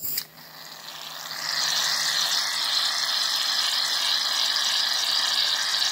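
Aerosol can of shaving cream spraying foam in one long, steady hiss that builds over about the first second and cuts off sharply near the end; the can is nearly empty.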